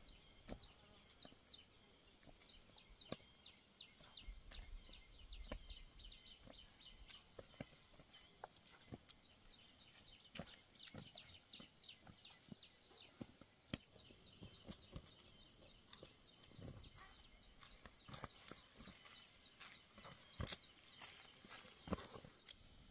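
Quiet, with faint scattered ticks and rustles of granules being taken from a metal basin and dropped by hand onto soil, along with footsteps in rubber boots on loose dry earth. A few louder knocks stand out near the end.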